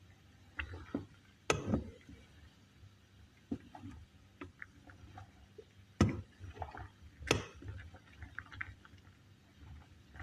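A spoon knocking and scraping against a saucepan as a simmering drink is stirred, with light liquid sounds. A few sharp knocks stand out, the loudest about six seconds in, with smaller clicks between them.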